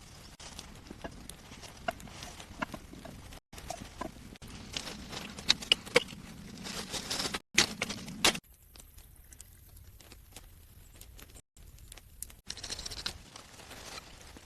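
Irregular sharp knocks and clicks with rustling, as from handling wood and tools, densest and loudest about halfway through, broken by several abrupt cuts.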